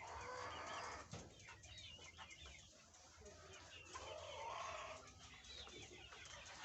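A flock of three-month-old Fayoumi chickens faintly clucking and chirping, with many short calls overlapping.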